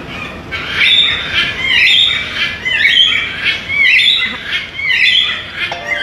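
Blue-and-gold macaw squawking, a steady run of loud, harsh calls about two a second.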